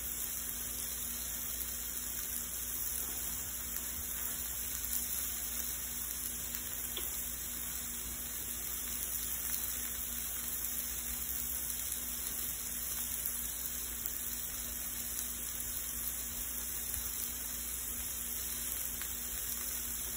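Shrimp sizzling steadily in hot oil in a frying pan as they sear, with a faint low hum underneath.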